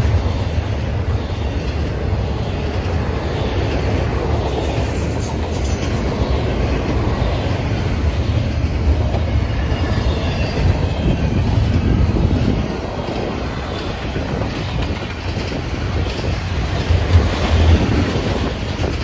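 Double-stack intermodal well cars of a CSX freight train rolling past, a steady rumble and clatter of steel wheels on the rails.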